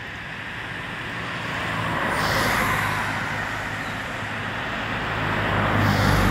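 Road traffic: vehicles passing, heard as two swells of tyre and engine noise, one peaking about two and a half seconds in and a louder one near the end with a low engine hum under it.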